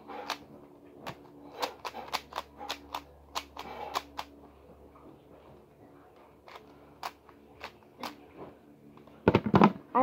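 Plastic 3x3 Rubik's cube being turned by hand: rapid runs of short clicking turns, then a few scattered turns, and a louder knock near the end.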